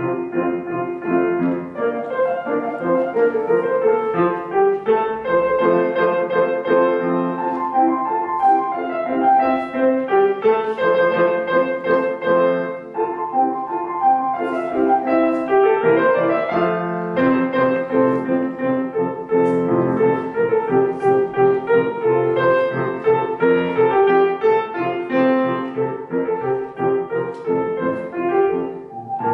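Grand piano playing a flowing classical-style piece, with a quick rising run of notes about halfway through.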